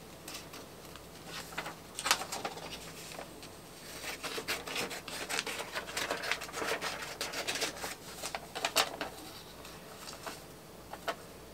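Scissors snipping a sheet of paper, then the paper rustling and being handled, in a run of irregular light clicks and crackles.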